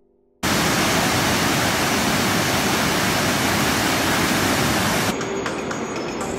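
Whitewater rapids of a Himalayan mountain river rushing over rocks: a loud, steady rush that cuts in suddenly after half a second of near silence. About five seconds in it gives way to a quieter outdoor background.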